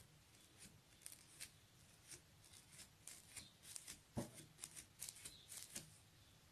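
Fluffy glitter slime squished and poked by hand, giving faint scattered crackles and small pops that come thicker from about three seconds in, the strongest a little after four seconds.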